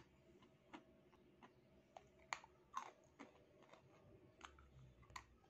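Dry clay being chewed: faint, crisp crunching clicks about two a second, with a pair of louder crunches a little before the middle.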